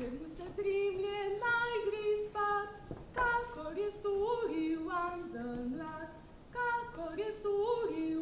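A woman's voice singing a folk tune unaccompanied, in short phrases of held notes that step up and down.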